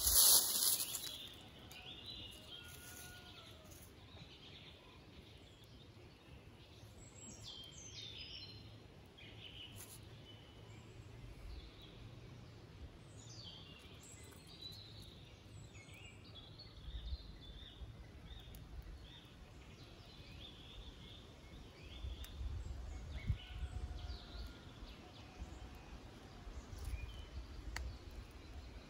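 Forest ambience with birds chirping and calling on and off. A brief loud noise comes right at the start, and patches of low rumbling come in from about the middle on.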